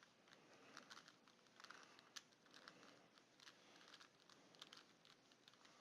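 Rubik's Cube layers being turned by hand: a quiet, irregular run of small plastic clicks and scrapes, several a second.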